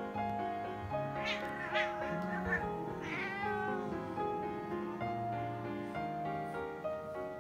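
A domestic cat meowing: a few short meows between one and two seconds in, then a longer falling meow about three seconds in. Background music with sustained notes plays throughout.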